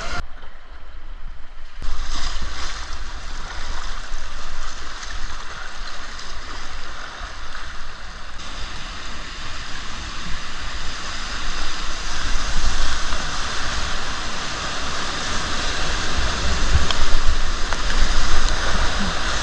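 River water rushing steadily past, an even hiss of flowing current with a low rumble underneath.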